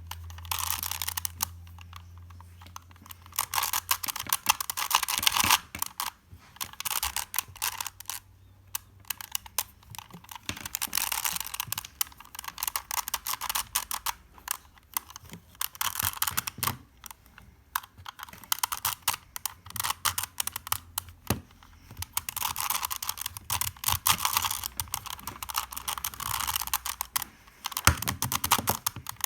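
A plastic 3x3 Rubik's Cube being twisted layer by layer, in bursts of quick clicking and rattling with short pauses between moves.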